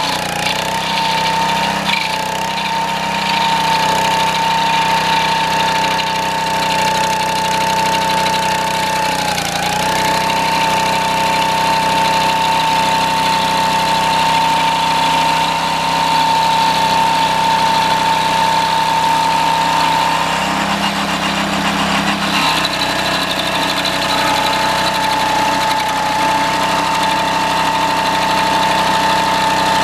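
Homemade stump grinder's single-cylinder 6.5 hp Honda engine running steadily, with a high steady whine over the engine hum. The whine dips in pitch briefly about a third of the way in and drops out for a couple of seconds about two-thirds through before returning.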